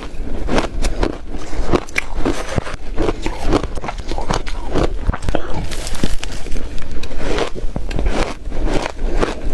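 Ice being bitten and chewed close to the microphone: a fast, irregular run of crisp crunches and crackles, several a second.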